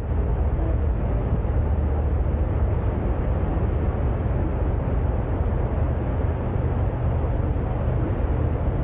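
Steady low rumble of a sightseeing boat under way: engine drone with wind on the microphone.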